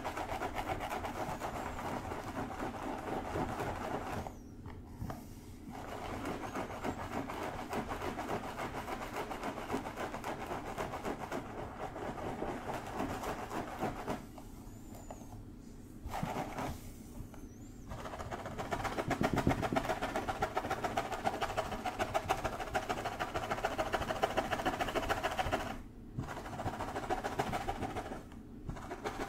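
Fingertips scratching and rubbing through long hair on a scalp, close to the microphone: a dense, rapid, crackly scratching that stops for a moment a few times.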